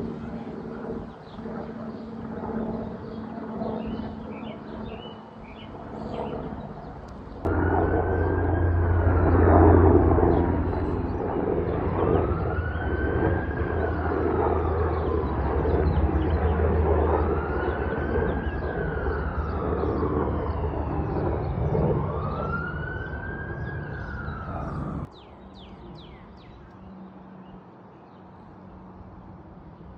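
A wailing siren rising and falling about every three and a half seconds over a steady low rumble. It starts abruptly about seven seconds in and cuts off suddenly about twenty-five seconds in; before and after it there is a quieter steady hum.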